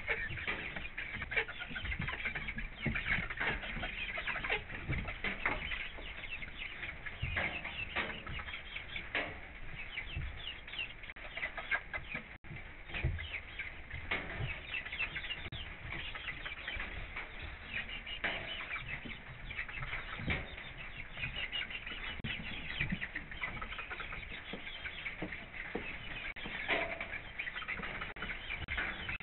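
Hens clucking softly and rustling their feathers, over a steady crackling patter of rain on the coop.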